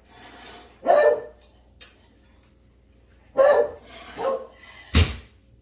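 A dog barking in short single barks, three times, followed about five seconds in by a sharp knock.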